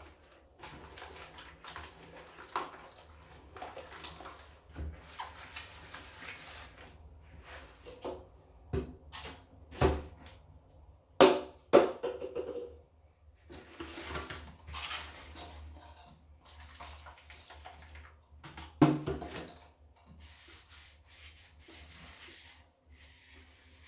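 Rubber-gloved hands scrubbing soapy garbage cans in a bathtub, with quieter rubbing and scraping between irregular hollow knocks as the cans are moved and bumped against each other and the tub. The loudest knocks come about ten, eleven and nineteen seconds in.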